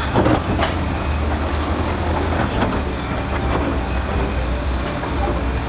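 Bulldozer's diesel engine running with a steady low rumble, with a few sharp knocks in the first second.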